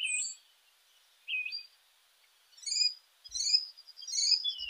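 Birdsong: a string of short, high chirps and quick whistled notes that slide up or down, coming in little bursts with pauses between them.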